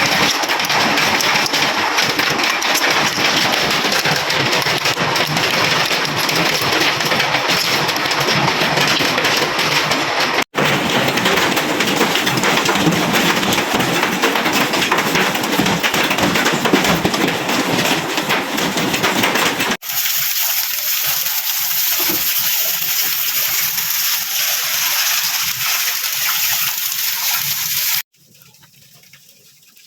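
Hailstones pelting down in a dense, loud clatter of countless small hits. After about 20 seconds it turns to a brighter, hissier rush of hail and rain, then drops away suddenly near the end.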